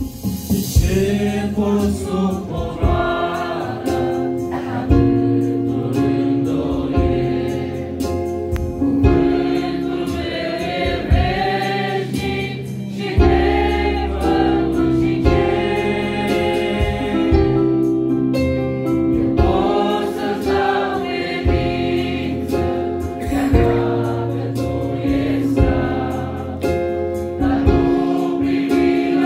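Mixed church choir of men and women singing a Romanian hymn through microphones, accompanied by keyboard, with held bass notes and a steady beat.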